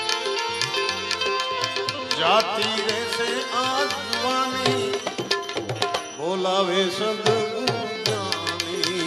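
Live Indian devotional bhajan music: tabla strokes and a harmonium's held chords, with a male voice singing long ornamented phrases about two seconds in and again about six seconds in.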